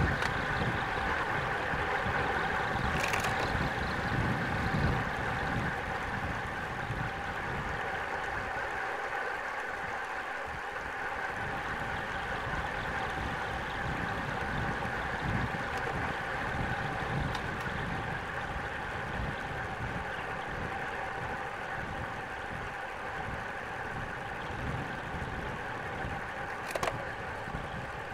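Wind rushing over the microphone and tyres running on asphalt as a road bike descends at speed, with a steady whine over a buffeting rumble. Two brief sharp clicks, one about three seconds in and one near the end.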